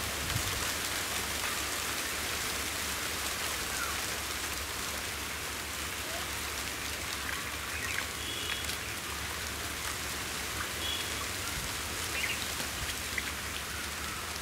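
Steady hiss of water in a shallow muddy pond, with small splashes as hands work through the mud and water.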